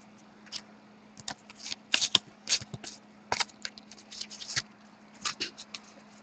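Hockey trading cards being handled and sorted by hand and laid down on a tabletop: a string of light, irregular flicks, taps and rustles of card stock.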